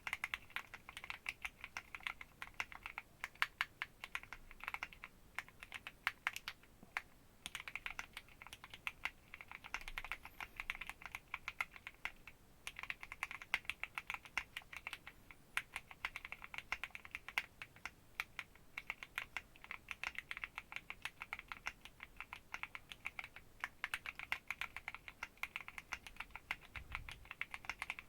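Keychron Q1 aluminium mechanical keyboard, home-modded, being typed on in quick runs of key clacks, with short breaks about 7 and 12 seconds in.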